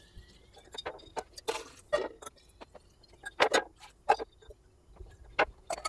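Irregular clinks, taps and knocks from a glass hummingbird feeder and a small metal saucepan being handled in a kitchen sink, the loudest a few seconds in.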